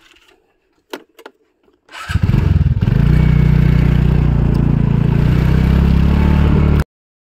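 A couple of short clicks, then a motorcycle engine starts about two seconds in and runs loud and steady before cutting off suddenly near the end.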